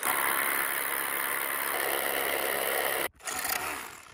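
Cordless SDS rotary hammer drill with a carbide-tipped masonry bit hammer-drilling into rock, a steady loud rattling run that stops suddenly about three seconds in, followed by a short final burst.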